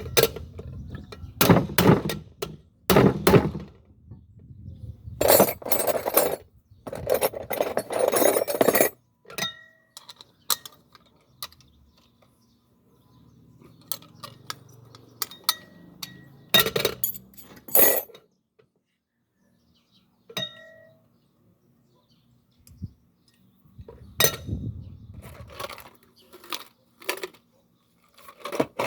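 Metal clinks, knocks and scrapes of a pressure cooker being handled, the pot and its lid knocking together, in several bursts with quiet pauses between.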